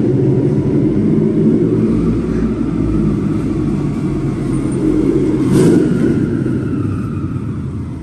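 Turbocharged car engine idling with a steady deep rumble, echoing off the concrete of a parking garage. A brief hiss cuts in about five and a half seconds in.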